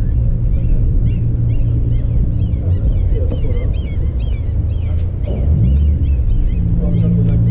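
Small birds chirping rapidly and repeatedly over a loud, steady low rumble.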